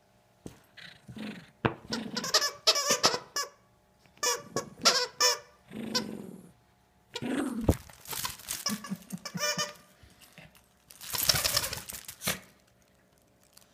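Plush dog toy's squeaker squeaking over and over as a small dog bites and tugs at it. The squeaks come in quick runs of several seconds, with short pauses between them.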